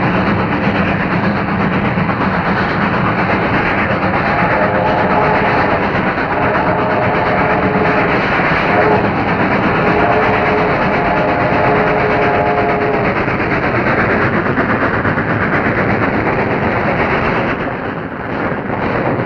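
A train running steadily while its multi-note horn sounds two long blasts, a short one and a final long one: the grade-crossing signal.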